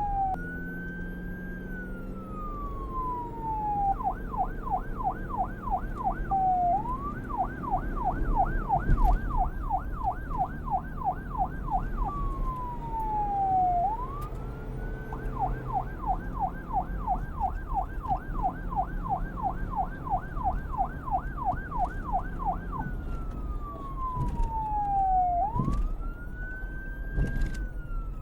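Police car's electronic siren switching between a slow wail, gliding up and then down over a few seconds, and a rapid yelp of about four warbles a second. It changes mode several times, over a low vehicle rumble.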